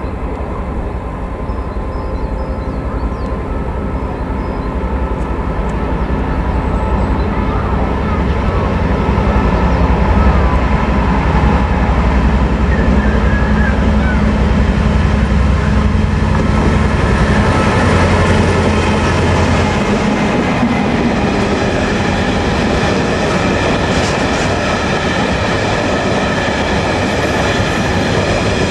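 Class 59 diesel locomotive 59003, its two-stroke EMD V16 engine running under power and growing louder as it approaches and passes, hauling a train of hopper wagons. About twenty seconds in the engine note fades and the wagons' wheels rumble and clatter past.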